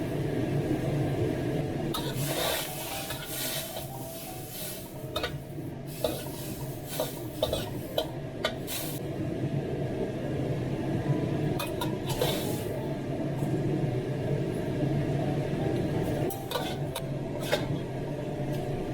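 Diced bamboo shoots blanching in a pot of salted water, stirred with a utensil that clicks and scrapes against the pot now and then, over a steady rushing background of the pot on the heat.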